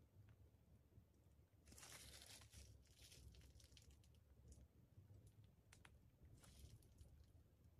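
Faint crinkling and rustling of a plastic piping bag being squeezed while piping cream cheese frosting, in a few short bursts with soft clicks between.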